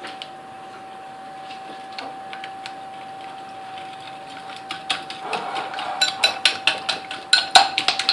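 A faint steady hum, then from about five seconds in a utensil knocks and clatters rapidly against a mixing bowl, several strikes a second, as icing sugar is mixed into the cake batter.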